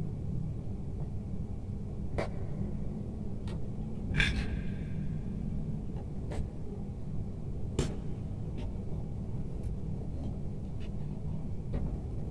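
Pliers and copper wires clicking and scraping as the wires are twisted together inside a plastic electrical junction box. The clicks are light and irregular, about ten of them, one about four seconds in with a short rasp after it, over a steady low background hum.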